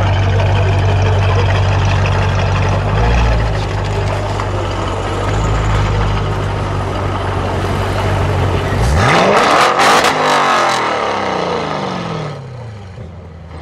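Audi RS6 DTM's twin-turbo V8 with a Milltek exhaust idling with a deep, steady burble. About nine seconds in it is blipped once in a sharp rev, with a burst of crackles at the top, then falls back to idle.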